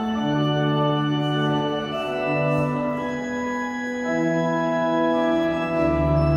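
Pipe organ playing slow sustained chords, each held for a second or two before changing, with a low bass note joining near the end.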